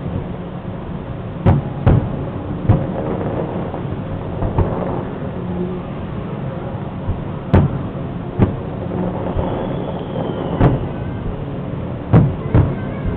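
Aerial firework shells bursting in a series of sharp booms, about eight, spaced unevenly with some in quick pairs, over steady background noise.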